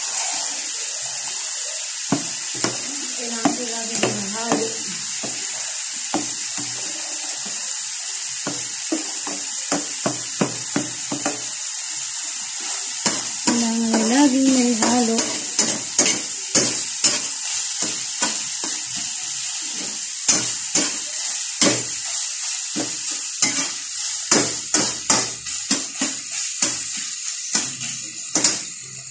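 Metal spoon stirring, scraping and clinking against a stainless steel pot and a wok, in many sharp clicks that come thicker in the second half. A steady sizzle of ground pork frying in the wok runs underneath.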